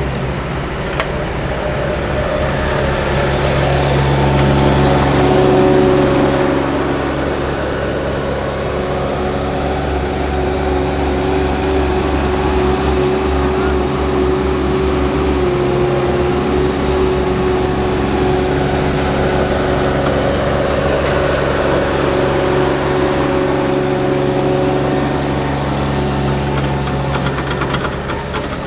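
Diesel engines of asphalt-paving machinery running steadily, a little louder about four to six seconds in.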